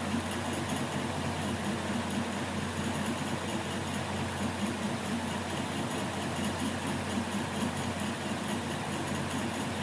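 Steady low background hum with an even hiss, unchanging throughout, with no distinct knocks or clicks.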